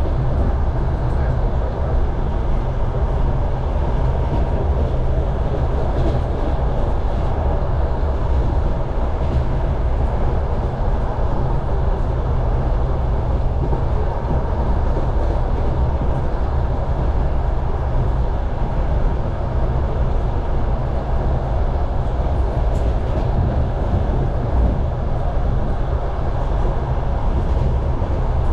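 Steady rumble of a moving passenger railway coach heard from inside, its wheels running along the rails with a clatter of wheels on the track.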